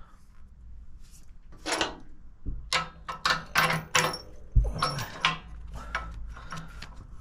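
A steel bolt and metal parts clinking and knocking as a 12 mm bolt is tried in the gearbox mount hole: a quick run of sharp metallic clicks in the middle, over a low steady hum. The bolt is fouling on the gearbox casting.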